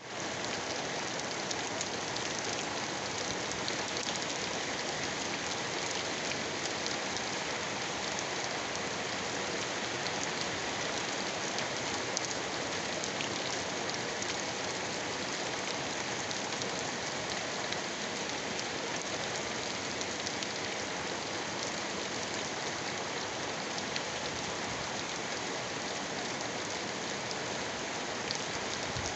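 Heavy rain falling steadily, a dense, even patter of drops that does not let up.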